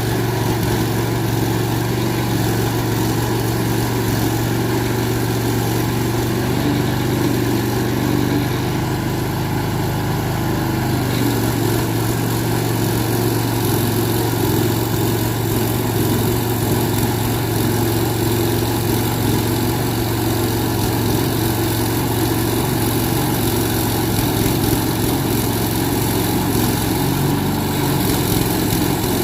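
Small engine of a portable band sawmill running steadily, with a slight shift in its tone about eleven seconds in.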